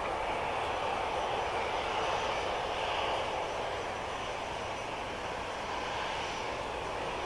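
Airbus A321 jet engines running at low power as the airliner taxis, a steady distant rushing roar.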